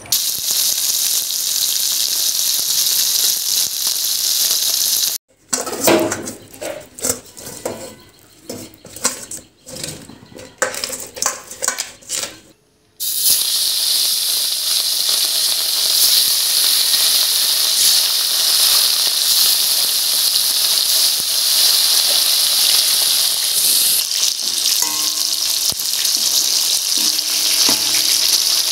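Rohu (rui) fish steaks frying in hot oil in a wok: a steady, loud, high sizzle. About five seconds in it gives way to several seconds of scattered knocks before the sizzle resumes and runs on.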